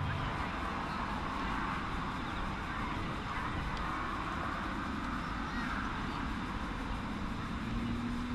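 Piston engine of an Extra 330 aerobatic monoplane, heard as a steady distant drone mixed with open-air rushing noise as it climbs and tumbles overhead trailing smoke. A steadier engine note comes in near the end.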